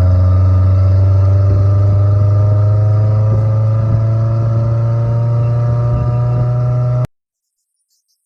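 A vehicle engine running steadily, its pitch rising slowly. It cuts off abruptly near the end.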